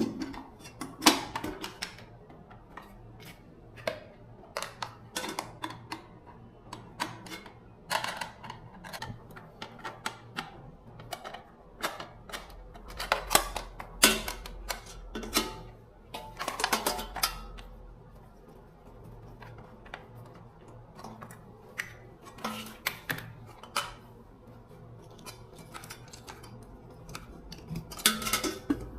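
Irregular clicks, taps and clinks of small hard parts and hand tools being handled, some with a short ring, over a low steady hum.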